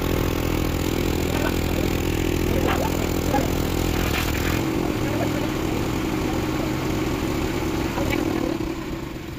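Eicher tractor's diesel engine running steadily, driving the pump that sucks water out of the pond through the hose. Its low hum thins about halfway through, and the sound fades near the end.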